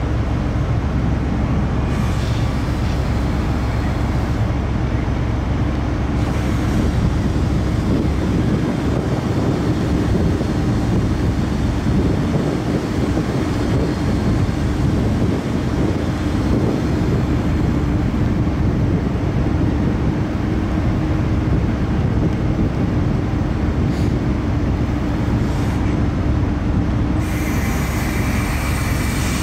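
Steady low rumble of a car ferry's engines and machinery heard from on board, with a constant hum running through it. A higher hiss joins near the end.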